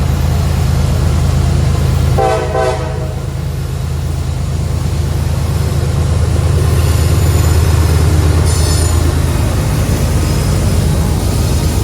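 Diesel locomotives of a heavy freight train working hard up a grade, a steady low engine drone. A short horn blast sounds about two seconds in, and high-pitched wheel squeal comes in from the middle on.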